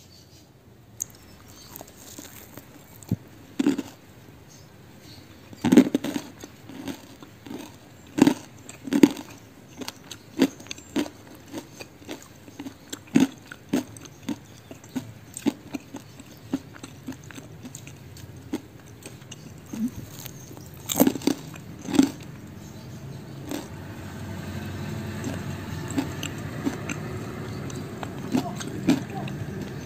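Close-up crunching and chewing of crispy fried cassava snacks: irregular sharp crunches, loudest about six, nine and twenty-one seconds in. A low steady hum comes up in the last several seconds.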